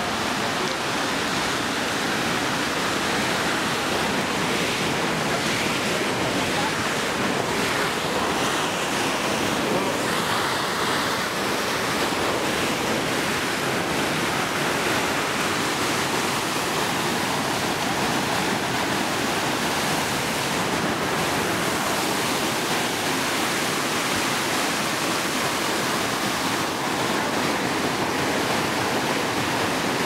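Fast mountain creek rushing over rocks: a steady, unchanging rush of whitewater.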